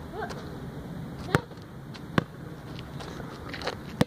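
A basketball hitting hard surfaces outdoors after a shot. There are two sharp impacts about a second apart, then a fainter one near the end.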